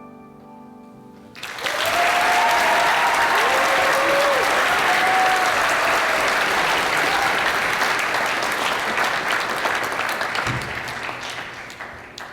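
Audience applauding, with a few whoops, starting about a second and a half in as the last piano notes fade, then slowly dying away near the end.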